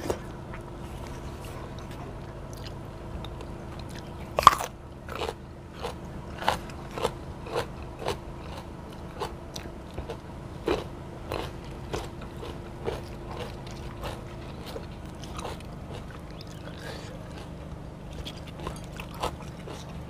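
Close-miked chewing of a mouthful of raw seafood in spicy dressing: wet, crunchy bites repeating about one or two times a second, with one louder bite about four and a half seconds in, growing fainter toward the end.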